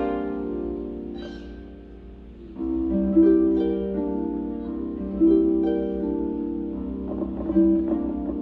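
Solo concert harp playing: a plucked chord rings and fades over the first two seconds or so. Then, about two and a half seconds in, a new phrase of plucked notes and chords begins.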